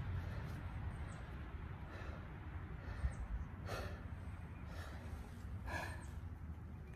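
A person breathing hard, with a few heavy exhales about two seconds apart, out of breath from spinning a hand drill for friction fire.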